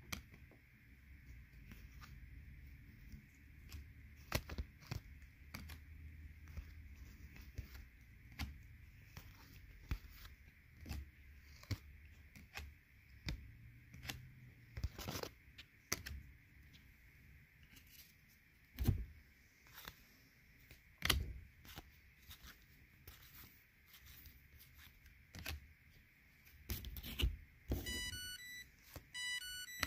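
Stack of trading cards being flipped through and set down, faint scattered clicks and taps. Near the end an insulin pump alarm beeps a short series of electronic tones.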